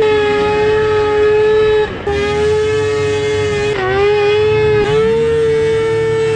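Two-stroke triple snowmobile engine held at high revs, a steady high-pitched wail. It dips briefly about two seconds in, again near four seconds, and once more near five seconds.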